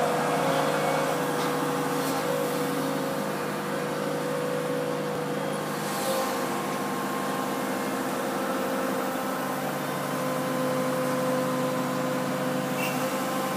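Heavy construction machinery's diesel engine running steadily at constant speed, with a steady whine above the engine hum.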